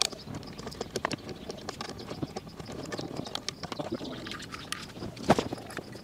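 Light clicks and taps of wood and metal hardware as a wooden scooter's steering post is handled and its bolt worked by hand, with one louder knock a little over five seconds in.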